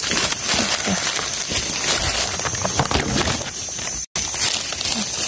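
Dry dead leaves and twigs on the forest floor rustling and crackling, close up, as a hand searches through the leaf litter and picks a mushroom.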